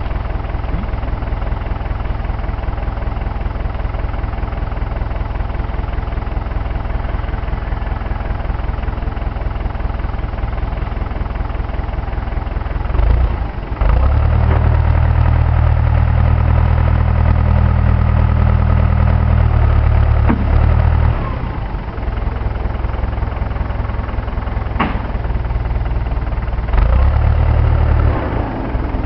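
Case 530CK backhoe's diesel engine running steadily, then working noticeably harder and louder for about seven seconds from roughly halfway in, and again briefly near the end, as the backhoe is operated, with a few short knocks in between.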